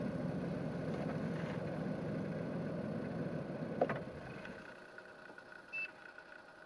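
Toyota Raize's 1.0-litre turbo three-cylinder idling steadily, heard from inside the cabin. It is switched off about four seconds in: a sharp click, then the running sound dies away. A short high beep follows near the end.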